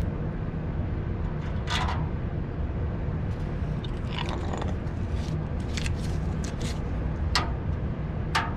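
A few sharp metal knocks and scraping clicks as a steel pin is worked into a joint of a steel table frame. The last two are hammer taps on the pin, near the end. A steady low rumble runs underneath.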